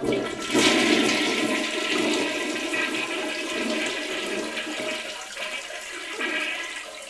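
Toilet flushing, loudest about half a second in and fading slowly away.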